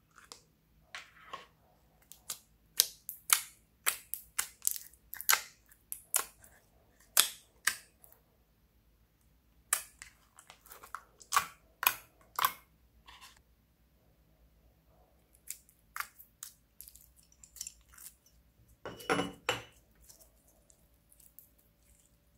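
Slime being pressed and stretched by hand: a run of sharp pops and crackles as air bubbles in the slime burst, a pause of about two seconds, then more pops and a longer squelch near the end.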